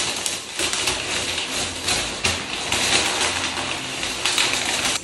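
Crinkling and rustling of a flower bouquet's paper wrapping being handled and pulled off, with many quick crackles.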